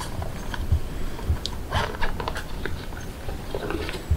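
Footsteps on dry leaf litter: irregular soft thumps about every half second, with short crackles and clicks of leaves and handling bumps.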